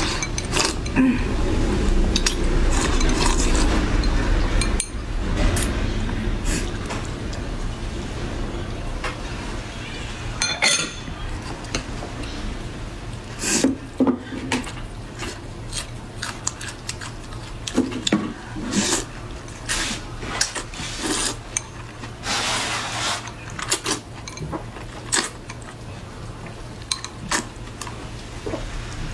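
Eating utensils clinking and scraping against a bowl, with scattered short clicks, while a bowl of eggplant-sauce noodles is eaten. A low rumble is heard for the first few seconds.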